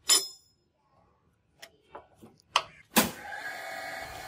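A steel knife blank clinks with a ringing note as it is set down on a surface grinder's steel magnetic chuck, followed by a few light clicks. After a sharp click about three seconds in, the surface grinder runs with a steady mechanical hum and whine.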